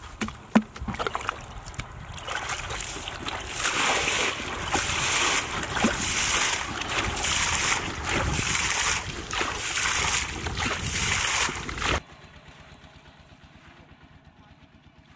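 Muddy water being bailed out of a shallow pool with a plastic bowl, splashing in repeated scoops and throws about once a second. The splashing cuts off suddenly near the end, leaving only a faint outdoor background.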